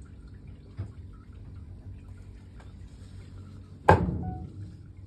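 Knife work on a wooden cutting board as eel is cut: a light knock about a second in, then one loud, sharp knock about four seconds in, followed by a brief ringing.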